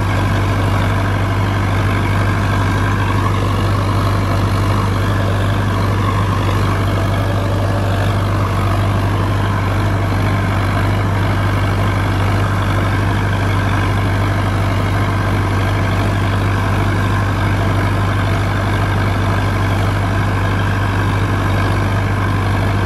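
Sonalika DI 750 DLX tractor's diesel engine running steadily, heard from the driver's seat while the tractor works a rotary tiller. There is a constant low hum under an even mechanical din, with no change in level.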